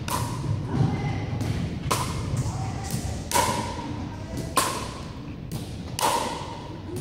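Pickleball paddles striking a plastic pickleball in a rally: sharp, hollow pops roughly once a second, each ringing briefly and echoing around a large gymnasium.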